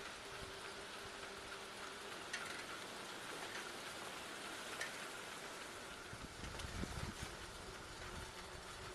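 Tropical-storm wind hissing steadily, with low rumbling gusts buffeting the microphone about six to eight seconds in. A faint steady hum stops about two seconds in.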